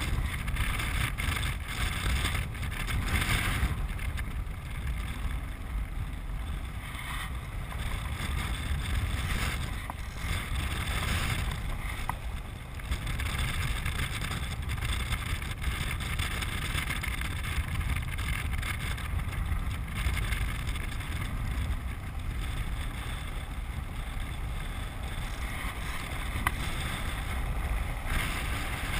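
Wind buffeting the microphone and the steady rolling rumble of a land sailer moving across hard, dry lake-bed clay, with a few light clicks and rattles from the craft.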